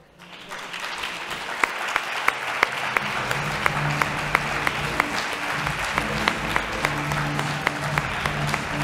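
Audience applauding, with background music coming in about three seconds in.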